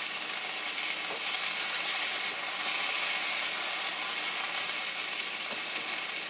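Walleye fillets frying in melted butter in a skillet: a steady sizzle.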